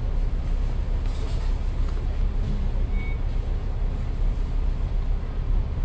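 Double-decker bus idling at a stop, a steady low rumble heard from inside the upper deck.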